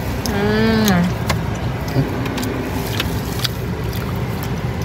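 Steady low rumble of a car heard from inside the cabin. About half a second in, a brief vocal sound falls in pitch. Scattered light clicks and rustles run through it.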